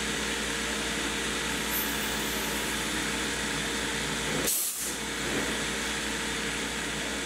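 A DIY CNC turret lathe running and cutting a part: a steady machine hiss and hum from the spindle and cut, with a brief sharper hiss about four and a half seconds in.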